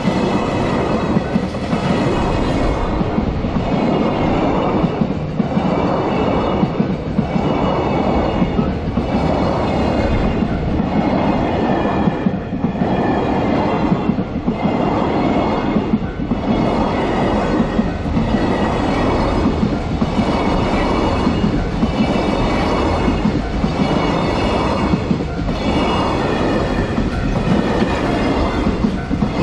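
Long freight train of wagons passing close by at a level crossing, its wheels clattering over the rails in a steady beat that pulses about every two seconds as each wagon goes by.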